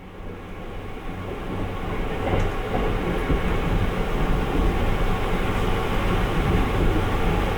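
Sunrise Izumo sleeper train running on the rails at speed, a steady rumble that fades in over the first couple of seconds.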